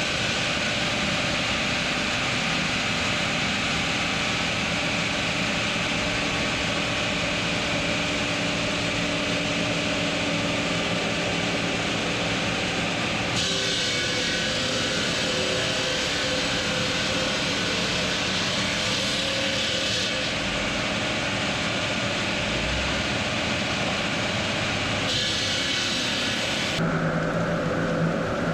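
Steady roar of stone-cutting machinery with a few steady tones through it, changing character abruptly several times.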